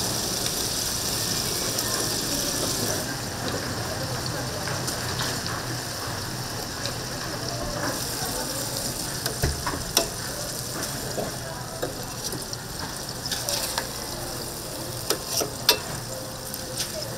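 Tteokgalbi (Korean minced short-rib patties) sizzling steadily on a hot griddle, the sizzle loudest in the first few seconds. A few sharp clicks and taps come through, mostly in the second half.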